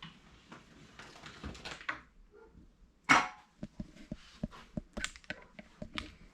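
A noisy cat toy bird being played with: rustling at first, a loud short rustle about three seconds in, then a quick run of clicks and taps.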